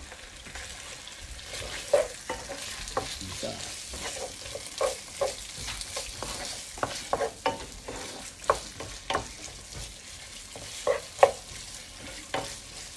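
Potatoes, carrots, onion and tomato paste sizzling in oil in a frying pan, stirred with a wooden spatula. The steady frying hiss carries a string of irregular knocks and scrapes of the spatula against the pan, starting about two seconds in.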